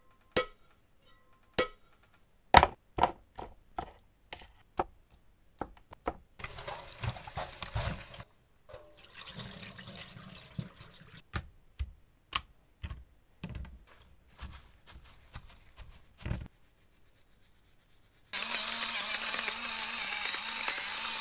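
A run of sharp knocks and clatters of kitchen handling, then a tap running and water splashing in a stainless steel sink as meat is rinsed, broken by more clicks and knocks. Near the end an electric pepper grinder whirs steadily for about three seconds, the loudest sound.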